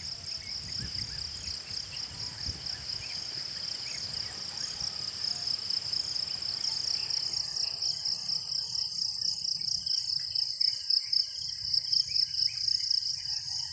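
Crickets trilling in a steady, high, pulsing chorus, joined by scattered short chirps in the second half.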